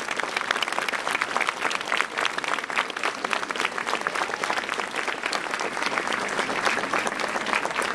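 A large crowd applauding, many hands clapping together in a steady, continuous spell.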